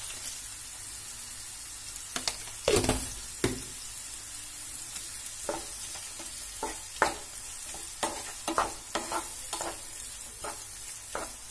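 Sliced onions sautéing in hot oil in a nonstick frying pan, stirred with a wooden spatula. A steady sizzling hiss runs under a string of spatula scrapes and knocks against the pan that start about two seconds in, the loudest around three seconds in.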